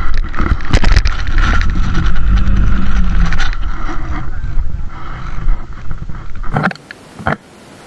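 Loud low rumble of a zipline trolley running along a steel practice cable, cutting off abruptly about six and a half seconds in.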